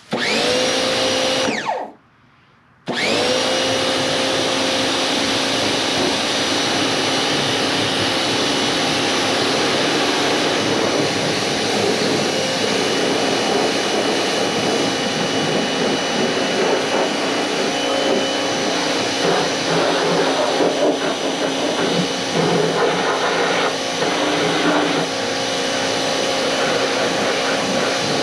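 Cat 1800 PSI electric pressure washer's motor whining up to speed, cutting out for about a second, then starting again and running steadily.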